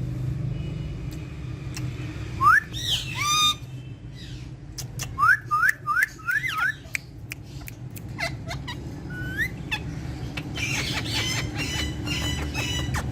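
Pet parrots calling with rising whistled chirps: a couple of calls about two and a half seconds in, then a quick run of about five rising chirps, and a dense stretch of overlapping calls near the end. Sharp clicks come and go, over a steady low hum.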